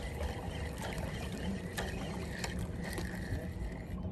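River water lapping and rushing close by, with scattered small clicks and knocks from handling the fishing rod and reel.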